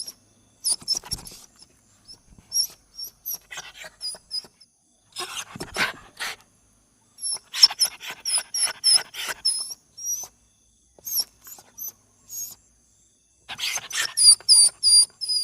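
A bird making a string of odd calls: short high chirps, often in quick runs, mixed with rough rasping bursts, with short pauses between.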